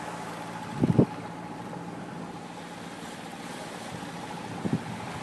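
A 45-foot catamaran's engine running steadily, a constant hum under a haze of wind and water noise. Two brief low thumps come about a second in and near the end.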